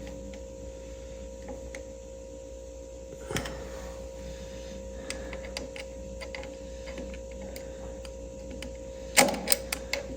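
Small metal clicks and taps of hand work on an Allis-Chalmers WD distributor being fitted with new points and condenser, with a sharper knock about a third of the way in and a quick run of louder clicks near the end, over a steady background hum.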